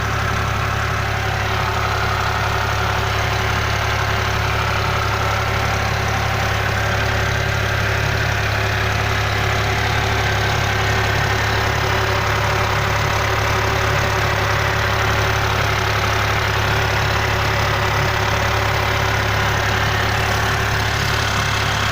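Alfa Romeo Brera 3.2 Q4's 3.2-litre V6 petrol engine idling steadily just after a cold start, with a clattering from the top end of the engine. The owner wonders whether the hydraulic lifters are the cause, since the timing chain is said to be new.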